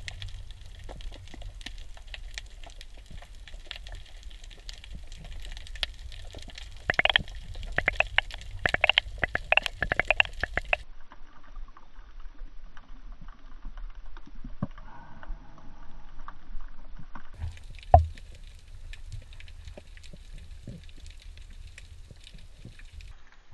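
Underwater sound picked up by a camera in a waterproof housing while snorkelling: a low muffled water rumble with scattered clicks and crackles, densest in the middle stretch. One sharp knock comes about 18 seconds in, and the sound changes abruptly a few times.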